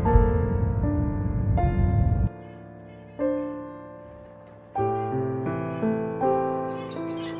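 Slow piano music playing note by note. A low rumble underneath it cuts off suddenly about two seconds in.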